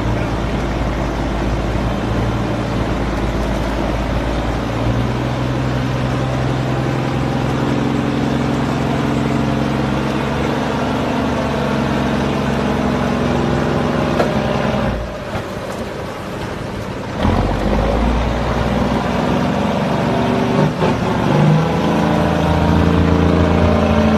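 Heavy diesel engines working under load, the note rising and falling as the pull goes on. The engine sound drops away for about two seconds a little past the middle, then picks up again.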